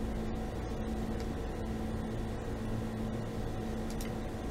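Room tone: a steady low electrical hum with a faint hiss, no distinct events.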